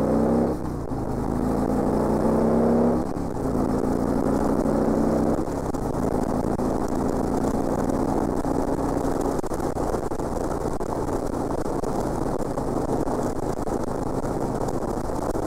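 Harley-Davidson Electra Glide police touring motorcycle's V-twin engine pulling hard to pass. It climbs in pitch, drops at an upshift about three seconds in, climbs again and settles at about five and a half seconds into a steady cruise. Wind rushes over the microphone throughout.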